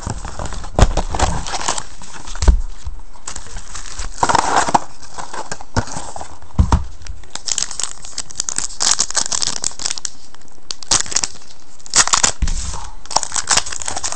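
Trading-card hobby box being torn open and its foil card packs handled, with crinkling and tearing of cardboard and wrappers, and a few dull thumps along the way.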